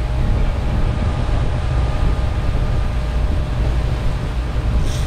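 Boat engine running steadily under way while trolling, with a low rumble and the rush of the wake and wind.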